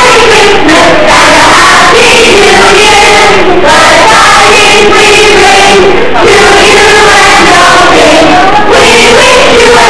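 A large stage chorus of children and adults singing together, loud.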